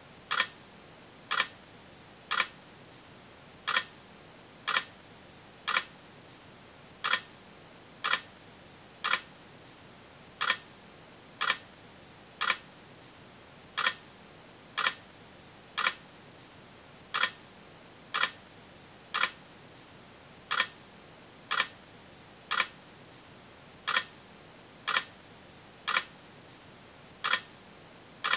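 Sharp single clicks repeating about once a second, slightly unevenly spaced, over a steady faint hiss.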